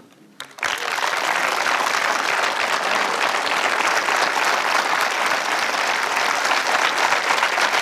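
Audience applause: a few first claps, then about half a second in dense, steady clapping from the whole crowd.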